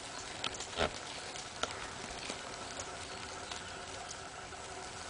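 Dry leaf litter and grass rustling and crackling under a spectacled cobra and a dog fighting, with a few sharp cracks, the loudest about a second in.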